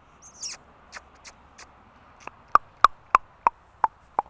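An animal's short, sharp calls repeated evenly about three times a second, each a brief yip-like chirp. A brief rustling scrape comes about half a second in, followed by a few scattered clicks.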